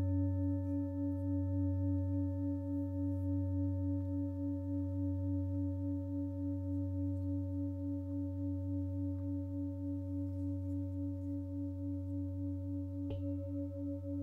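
A 32 cm five-metal singing bowl ringing with a very deep tone and several higher overtones, the sound pulsing in a steady, even wobble. It is struck again about thirteen seconds in, renewing the ring.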